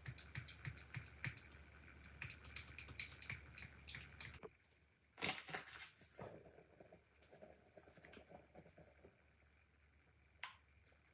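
Faint, quick clinking of a small spoon stirring yeast in water in a drinking glass, about three or four clinks a second. After a cut comes a single sharp knock, then a soft faint rustle as flour is poured from a paper bag into a stainless-steel mixing bowl.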